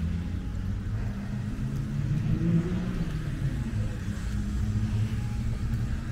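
Street traffic: car engines running in a steady low rumble, one of them revving up about two seconds in.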